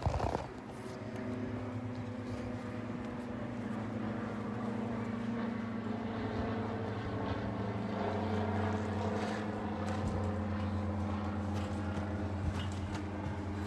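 A steady engine drone that drops slightly in pitch about eight seconds in, with a brief knock of the phone being handled at the start.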